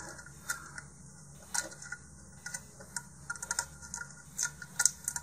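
Fingers folding down slit tabs of tape and pressing them onto a plastic rocket part, making an irregular scatter of small crinkling clicks and taps.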